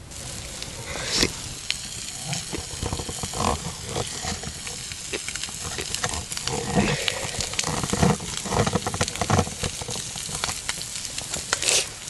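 Small wood campfire crackling and hissing, with many sharp pops. Several duller knocks and rustles come through in the middle.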